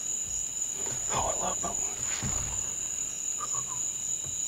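Steady high-pitched insect chorus, a continuous trill. A few faint, brief closer sounds come about one and two seconds in.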